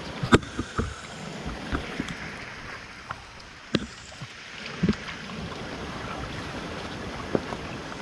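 Shallow rocky stream running steadily, with a few sharp knocks from hands and feet in the water and on the stones.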